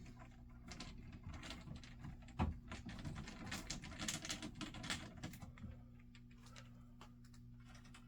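Light clicks, taps and scraping of small wires and a tool being worked into alarm panel terminals, with one sharper tap about two and a half seconds in; the clicking dies away after about six seconds, leaving a steady low hum.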